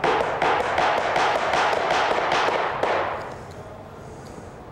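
Hammer tapping U-shaped staples through expanded metal lath into a wooden panel frame: a quick run of sharp strikes that dies away about three seconds in.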